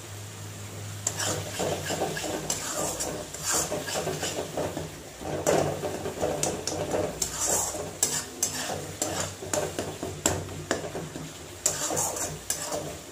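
Flat metal spatula scraping and stirring a thick tomato masala around a metal kadai as it fries on medium flame. The strokes come irregularly and start about a second in. This is the kosha stage, frying the spice paste down until the oil separates.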